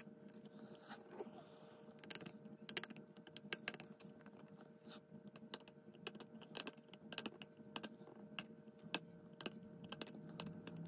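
Tamiya scribing tool's blade scraping along a plastic model car body, a quick irregular run of short, faint scratching strokes as it cuts a groove deep enough to break through the plastic.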